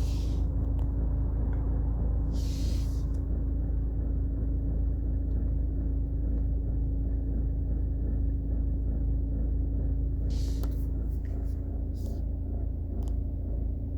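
Citroën Picasso engine running with a steady low rumble and a constant hum, juddering in a way the owner finds alarming. A few short hisses come about two and a half seconds in and about ten and a half seconds in.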